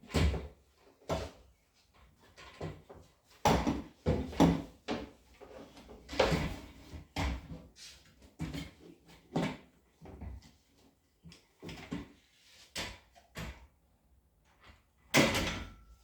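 Irregular knocks, clunks and rubbing of desk parts being handled and fitted together during assembly, with a louder scraping clunk near the end.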